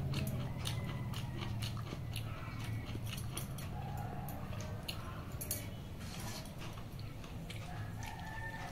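A person eating pakhala, watered rice, by hand: chewing, with frequent small clicks and scrapes of fingers on steel dishes. A steady low hum runs underneath.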